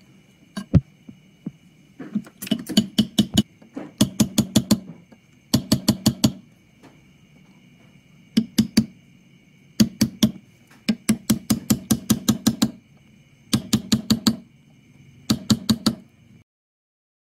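Small steel setting punch tapped with a small hammer to push a ring's prongs down over a cat's eye cabochon. The taps come in quick runs of four to eight sharp metallic taps, several a second, with short pauses between runs.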